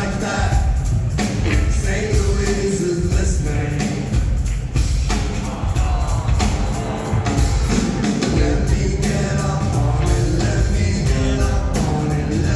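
Rock band playing live with a singer, over a steady drum beat and a deep bass line.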